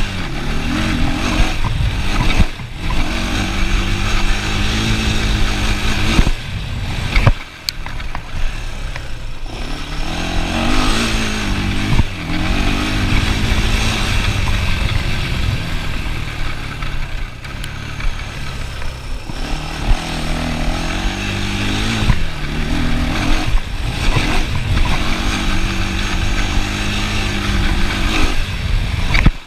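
ATV engine running under way as it is ridden, its pitch rising and falling with the throttle and easing off briefly several times, heard from the rider's position.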